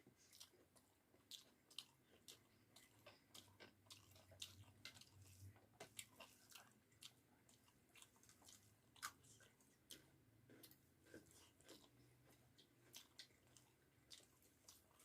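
A person chewing a mouthful of rice with bamboo-shoot and potato curry close to the microphone: many irregular wet mouth clicks and smacks, a few more pronounced than the rest.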